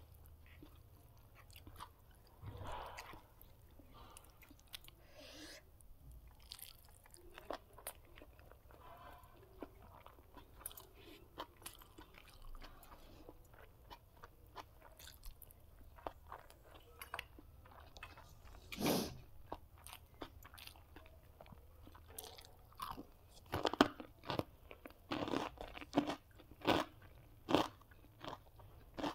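Close-up mouth sounds of a person eating: wet chewing with many small crunches, turning to a run of louder, sharper crunching bites in the last few seconds.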